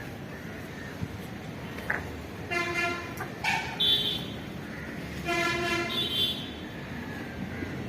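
A vehicle horn sounds twice, each toot a steady tone lasting under a second, about three seconds apart, over steady background noise. A short high-pitched chirp follows each toot.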